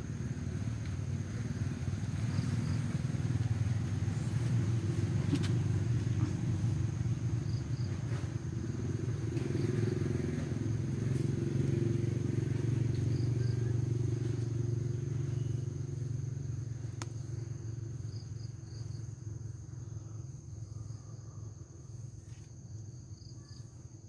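Low engine rumble of a passing vehicle, swelling over the first few seconds, holding, then fading away in the last third. A steady high insect drone runs underneath.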